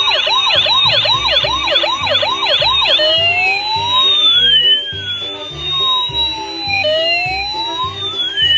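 Electronic siren sound effect from a battery-powered toy vehicle's small speaker: a fast repeating yelp for about three seconds, then a slow rising and falling wail, over a low pulsing beat.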